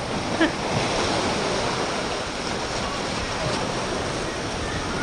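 Sea surf washing and breaking against a rocky shore, a steady rushing wash of water.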